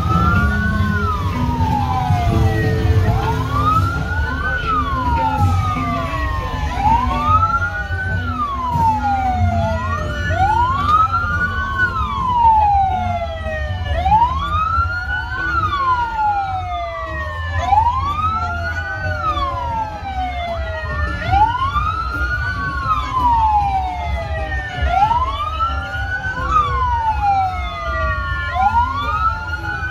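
Several emergency-vehicle sirens wailing out of step with each other, each tone rising, holding briefly and falling about every two seconds, over a low rumble.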